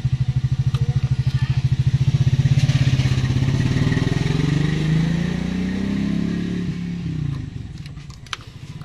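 An engine running with a steady pulsing note, then rising in pitch and falling back away as it fades, with a few sharp clicks near the end.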